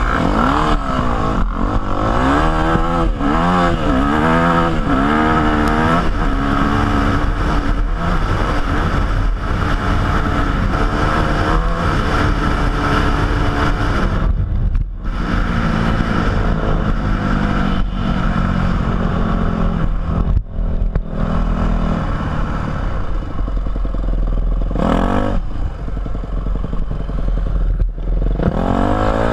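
Yamaha YZ250F four-stroke single-cylinder dirt bike engine, heard from the rider's helmet camera. It revs up and down repeatedly for the first few seconds, then pulls steadily at cruising speed. The throttle closes briefly near the halfway mark and again about 20 seconds in, and the engine revs sharply about 25 seconds in.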